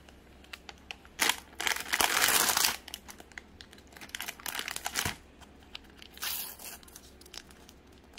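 Plastic bread wrapper being torn open by hand: a loud stretch of tearing and crinkling about a second in, lasting over a second. It is followed by shorter bursts of crinkling as the packaging is handled, with a sharp click about five seconds in.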